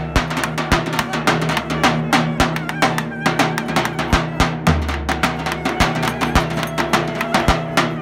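Davul, the large Turkish double-headed bass drum, played up close: deep beats of the wooden mallet on one head and rapid light clicks of the thin switch on the other, in a quick, steady rhythm. Another instrument holds sustained notes underneath.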